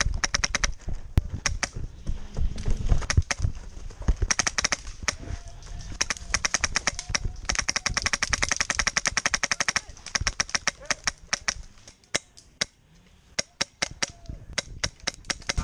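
Airsoft guns firing, a rapid clatter of full-auto bursts and single shots from several guns. The densest burst comes about eight seconds in, and the firing thins out briefly around twelve seconds in.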